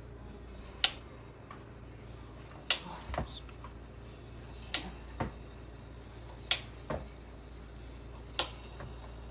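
Measuring spoons clinking as they are handled: about eight short, sharp clicks, several of them in pairs, over a low steady hum.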